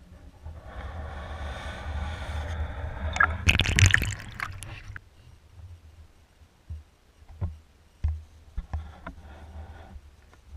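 Underwater sound heard through a GoPro's waterproof housing: a low rumble and water noise, a loud burst of crackling and knocks about three and a half seconds in, then a quieter stretch with scattered faint clicks and low thumps.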